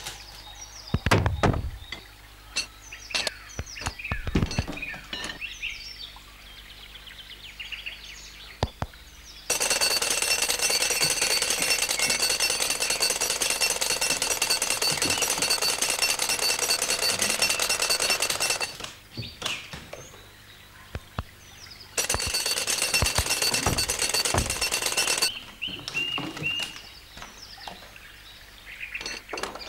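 Cartoon woodpecker drumming its beak very fast against a tree trunk: a loud, continuous machine-gun rattle that starts abruptly about a third of the way in and lasts about nine seconds, then comes back for about three seconds near the end. Before it there are a few light knocks and small squeaky effects.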